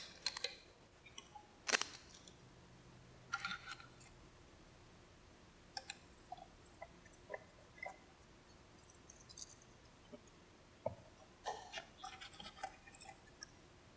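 Scattered light clicks and metallic clinks of hand-held parts and tools as the center idler pulley is taken off and the timing belt removed from a Yamaha 4.2-litre V6 SHO outboard powerhead. The sharpest click comes about two seconds in, with a further cluster near the end.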